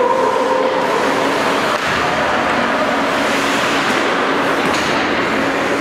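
Steady, loud din of an ice hockey rink during play, an even wash of noise with faint voices in it.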